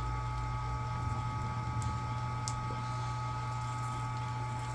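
Vevor electric wire stripping machine's motor running with a steady hum, with a couple of faint clicks.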